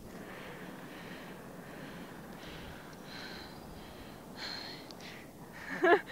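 Steady hiss of inline skate wheels rolling on asphalt, then a short laugh near the end.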